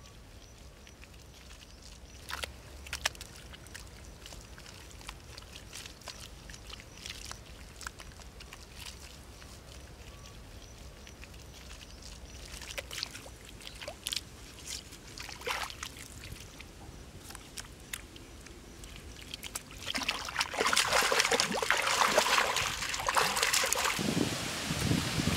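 Hands working wet mud and sand: scattered soft pats and squelches. About twenty seconds in, loud, continuous splashing and sloshing of shallow water takes over.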